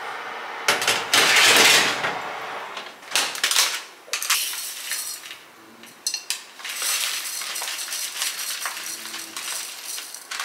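A metal baking tray slid into the oven with a loud clatter and a few knocks, then dry basmati rice poured from a plastic bag into a glass measuring jug, a steady rustle of grains for the last few seconds.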